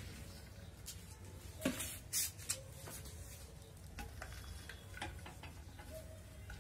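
Potting mix of cow-dung compost and soil poured from a bowl and a bucket into a cement planter, pattering and rustling as it falls. A sharp knock and a louder rush of falling soil come about two seconds in, with softer trickles later.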